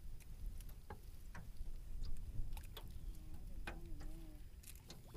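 Spinning rod and reel being worked to bring in a hooked bluegill: irregular light clicks and ticks of the reel and tackle, over a low steady rumble.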